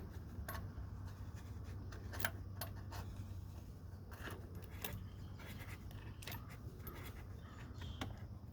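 Irregular small metallic clicks and scrapes as a door jamb plunger switch is screwed into its threaded hole in the door jamb, over a low steady hum.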